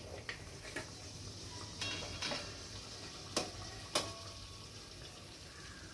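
Sweet appam deep-frying in hot oil with a quiet steady sizzle, and about six sharp clicks of a utensil against the pan, the loudest two a little past the middle.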